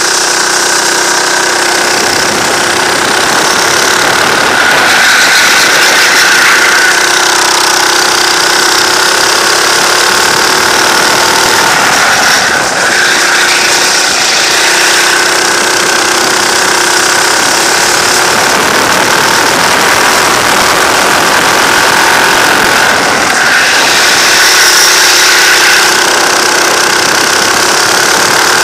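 Racing kart's engine running hard, heard up close from a camera mounted on the kart, its note rising and falling with the throttle and dipping briefly about twelve seconds in and again near twenty-three seconds.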